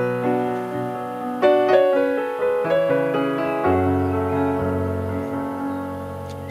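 Background piano music, chords and notes struck one after another and fading away.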